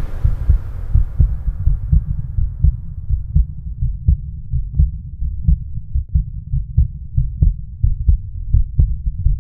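Low, regular heartbeat-like thudding, with the higher sounds fading away over the first two seconds so that everything else is muffled.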